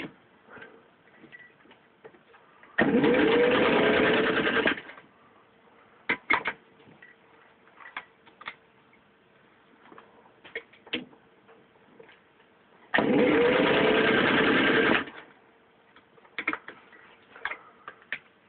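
Singer 15-91 sewing machine's motor running in two runs of about two seconds each, stitching through a 1/8-inch leather belt with a vinyl layer on top; each run opens with a rising whine as the motor speeds up. Between the runs, scattered light clicks.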